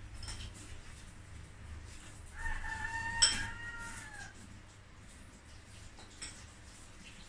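A rooster crowing once, a single call of about two seconds that holds its pitch and then drops at the end. A single sharp click sounds near the middle of the crow.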